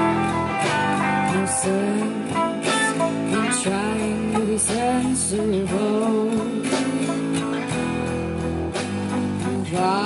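Background music: a guitar-led song with a steady strum and a melody line that bends in pitch.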